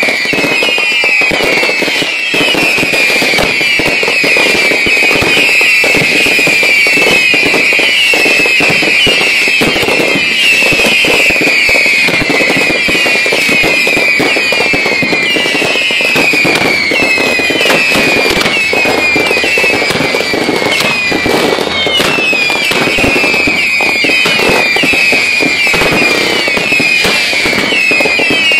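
Ground-level firework launchers going off without pause: a dense stream of overlapping whistles, each falling in pitch, about two or three a second, over steady crackling and popping.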